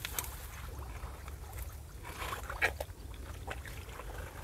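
Hands digging into a waterlogged crab burrow in rice-field mud: wet squelches and small splashes of muddy water, with a few short sharp knocks near the middle, over a low steady rumble.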